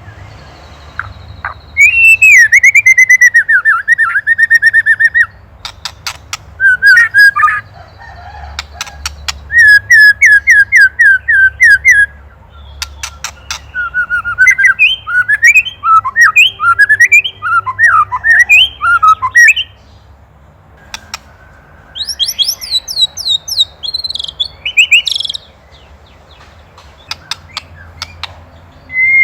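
White-rumped shama (murai batu) singing in loud phrases of rapid, repeated whistled notes and trills, broken by short pauses and sharp clicking chatter notes.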